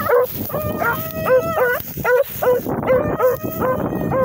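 Two beagles baying on a running rabbit's trail: short, repeated hound calls, several a second, the two voices overlapping at slightly different pitches.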